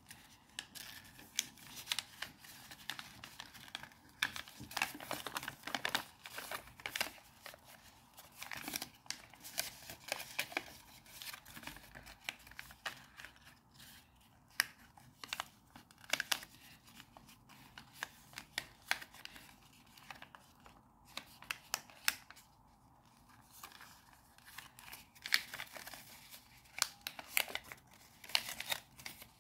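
A sheet of origami paper being folded and creased by hand: crisp crinkling and rustling with sharp little crackles, coming in irregular runs with short pauses between them.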